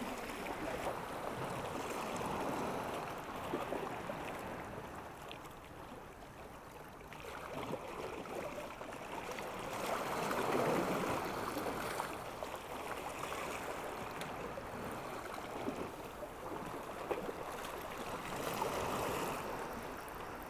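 Small sea waves lapping and washing against shore rocks, a steady wash that swells and eases every several seconds.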